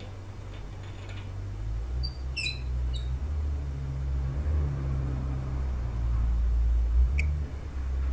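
A half-inch ARP head stud being threaded by hand into an aluminium Subaru EJ257 block, giving a few short, high metallic squeaks about two to three seconds in and one sharp click near the end, over a steady low rumble.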